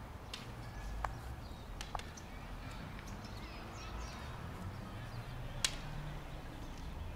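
Quiet outdoor ambience broken by four sharp clicks, the loudest a little before the end.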